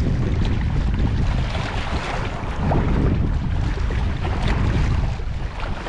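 Wind buffeting the microphone with a heavy rumble, over small waves of choppy sea water splashing and washing against rocks.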